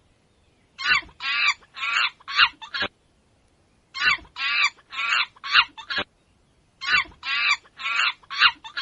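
Monkey calls: three repeated bursts of quick, high-pitched chattering, about five calls in each burst, with short pauses between the bursts.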